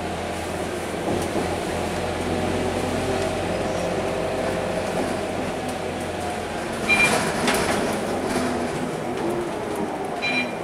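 Scania K230UB single-deck city bus heard from inside the cabin while driving, its engine and drivetrain running with a steady hum and a whine that drifts slowly in pitch. About seven seconds in, and again near the end, a brief sharper sound with a high ringing tone rises above it.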